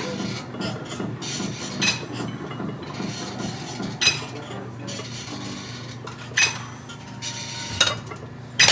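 Metal gym equipment clinking and clanking in the background: five sharp, ringing metallic knocks a second or two apart over a steady low hum.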